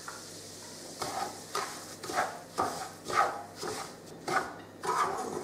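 A spatula stirring and scraping semolina as it roasts in ghee in a frying pan, with short scrapes about twice a second starting about a second in, over a faint sizzle.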